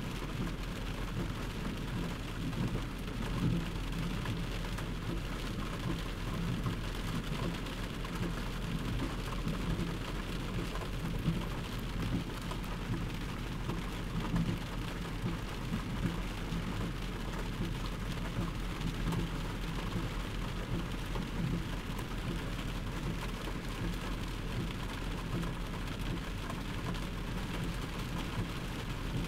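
Heavy rain pouring steadily during a flash flood, with a constant low rumble underneath.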